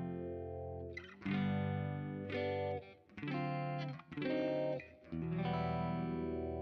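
Electric guitar played through a Kemper amp profile of a Hiwatt, with compression and reverb: a run of ringing notes struck about a second apart, the last one held and left to sustain.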